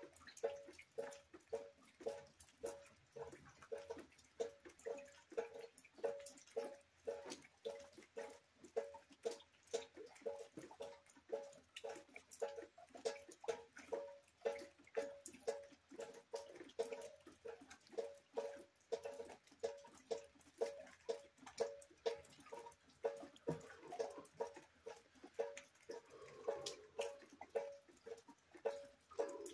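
Rain drips falling steadily into buckets, each drop landing with a short pitched plink, about two a second.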